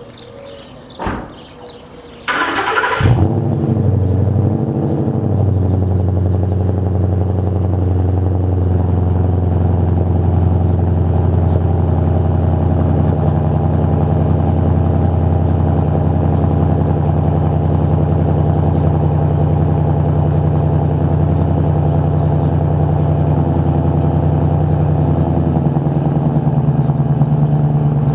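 2013 Ford Mustang GT's 5.0-litre V8 being cranked by the starter and catching about two seconds in, then idling steadily through an MBRP Race Series cat-back exhaust with a Pypes X-pipe. The idle steps down near the end as the fast start-up idle settles.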